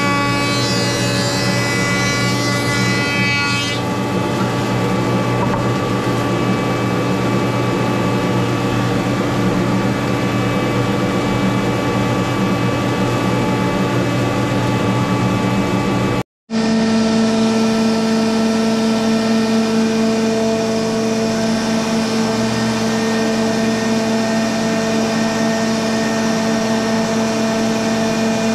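Jointer and dust collector running, with a board cut along its edge by the jointer's cutterhead for the first few seconds, then the machines running without load. After an abrupt cut in the sound, a different machine's motor runs with a steady, even hum.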